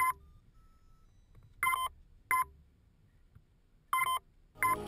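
Five short electronic beeps at the same pitch, spaced unevenly, with near silence between them; the second and fourth are a little longer than the others.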